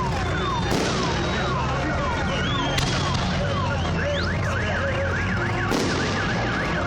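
A car alarm sounding, set off among the salute fireworks: repeated falling whoops about two a second, then switching to a fast up-and-down warble about four seconds in. Three sharp fireworks bangs cut across it.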